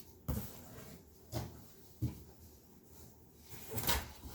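Clothing being handled: four brief rustles and swishes of fabric, spread over a few seconds.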